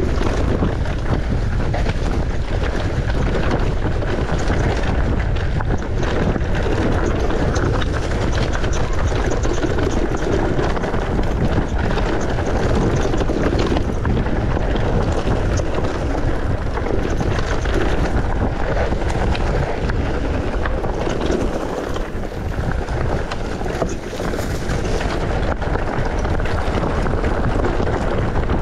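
Wind buffeting the microphone of a camera on a mountain bike riding downhill, with a steady rush and the bike clattering over rough, rocky trail.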